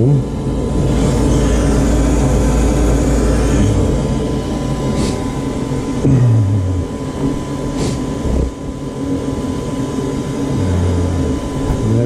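Goodman furnace's draft inducer motor running with a steady hum and rush of air, pulling plenty of vacuum on the pressure switch.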